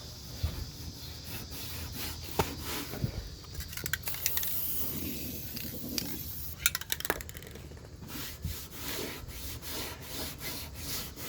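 A cleaning rag rubbing and scrubbing over a street light fixture's door, with scattered knocks and clicks as the fixture is handled.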